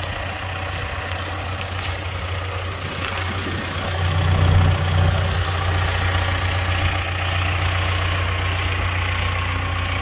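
John Deere 410K backhoe loader's diesel engine idling steadily, swelling louder for about a second around four seconds in.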